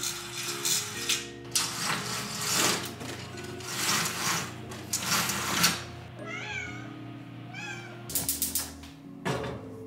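A domestic cat meows twice, two short calls that rise and fall in pitch, about six and a half and seven and a half seconds in. Soft background music runs under it, with several bursts of rustling, the loudest near the middle, as a window shade is drawn down.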